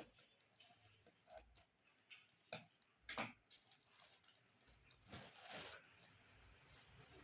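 Faint scattered clicks and knocks, a louder sharp click about three seconds in, and a brief rustle around five seconds: handling noise.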